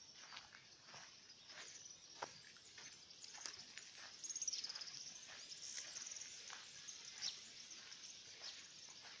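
Crickets and other insects chirping in a field, a faint steady high sound, with irregular footsteps or rustles through it and a brief high trill about four seconds in.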